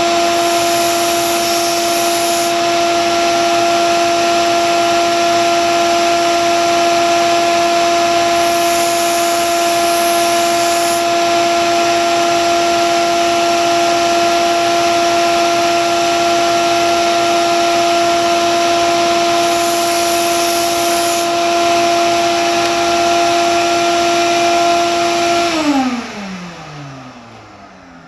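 Grizzly belt sander running with a steady hum while a kitchen knife blade is ground on the belt to reprofile it, three short passes each adding a hiss of steel on the abrasive. Near the end the motor is switched off and spins down, its pitch falling away.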